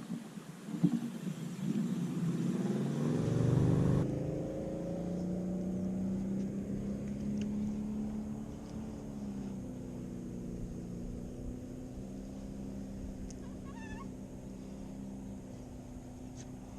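Boat motor speeding up with a rising pitch over a couple of seconds, then running steadily at an even pitch.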